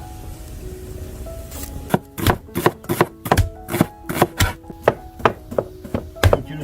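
A knife chopping on a cutting board in quick, regular strokes of about three a second, starting about two seconds in, over soft background music.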